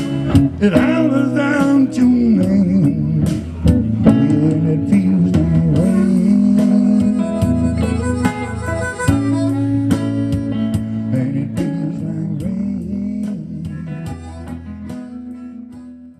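Live blues duo playing an instrumental ending on hollow-body electric guitar and bass guitar, with harmonica over them. The music fades out over the last few seconds.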